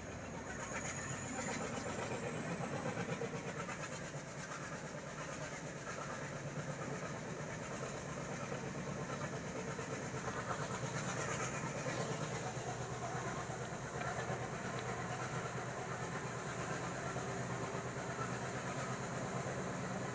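Passenger train running along the track, heard from aboard: a steady rumble of wheels on rail with some clickety-clack. A thin high whine slowly rises in pitch over the first half.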